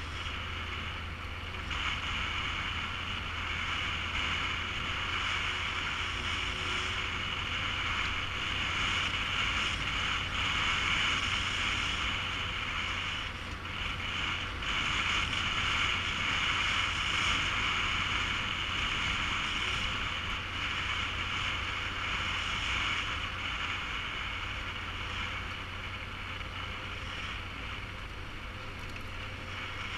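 Yamaha Super Ténéré's parallel-twin engine running at a steady cruising speed on a dirt road, with heavy wind noise on the bike-mounted microphone. The level stays fairly even, dipping briefly about halfway through.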